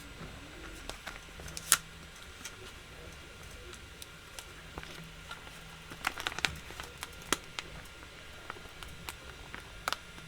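Plastic sheet protector being pushed onto the little tabs of a 3D-printed visor headband: scattered sharp plastic clicks and light crinkling, the loudest click about two seconds in and a quick cluster around six seconds in.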